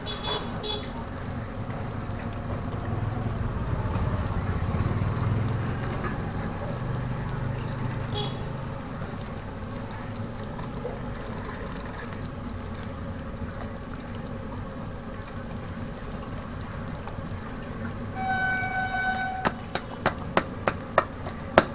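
Steady bubbling of singaras frying in a kadai of oil, with the squelch of gram-flour batter being mixed by hand in a metal bowl. Near the end comes a short horn-like beep lasting about a second, then a string of sharp clicks.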